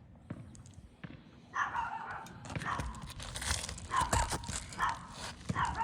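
Stiff, brittle asphalt shingles being pried up on a roof, with gritty scraping and crinkling as they flex and shed granules. From about a second and a half in, a dog barks repeatedly.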